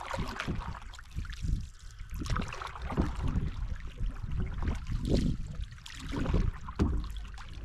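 Wooden canoe paddle stroking through river water, with water splashing and trickling against the canoe, a stroke about every second.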